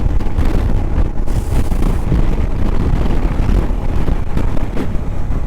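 Fierce wind buffeting the microphone, a loud, ragged rumble heavy in the low range.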